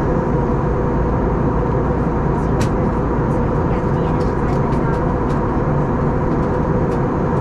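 Steady cabin noise of an Airbus A321neo in the climb: engine drone and the rush of airflow, with a steady hum and faint light ticks now and then.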